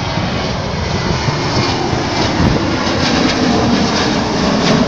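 Boeing 737 jet airliner climbing out after takeoff: a steady, loud rumble of its jet engines.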